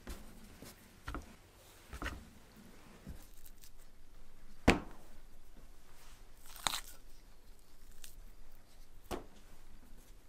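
Metal spoon scooping mashed-potato pierogi filling out of a ceramic bowl, with about half a dozen sharp clinks of spoon against bowl, the loudest about halfway through, between quiet handling of the filling and dough.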